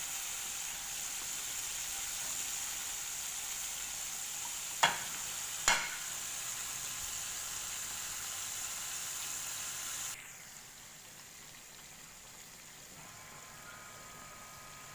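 Flour-coated chicken pieces deep-frying in hot oil, a steady sizzle. Two sharp knocks come about five and six seconds in, and about ten seconds in the sizzle suddenly drops much quieter.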